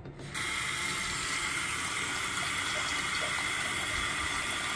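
Bathroom sink faucet turned on about a third of a second in, then running steadily onto the pop-up drain stopper as the stoppered basin starts to fill to test the drain.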